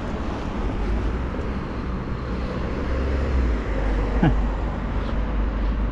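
Road traffic on a town street: cars passing with a steady low rumble that swells in the middle and then eases.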